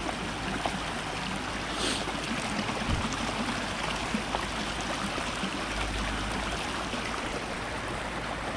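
Rainwater runoff rushing steadily down a roadside drainage ditch, carrying the flow from heavy overnight rain. A light knock sounds about three seconds in.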